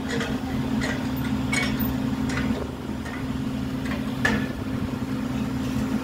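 Truck-mounted borewell drilling rig and its Doosan air compressor running steadily as a low hum, with several sharp metal clinks as the crew work at the drill pipe on the rig head.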